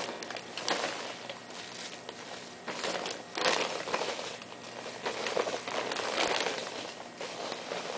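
Plastic sack crinkling and rustling in irregular bursts while handfuls of worm castings are scooped out of it by hand.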